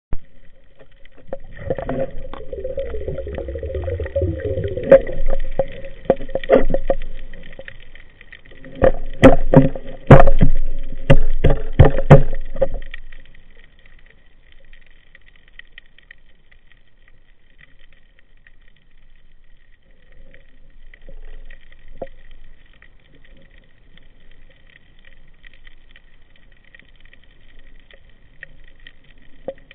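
Underwater noise picked up through a speargun-mounted camera's housing: a low rumble and a cluster of loud, irregular knocks during the first dozen seconds, then a faint, steady hiss.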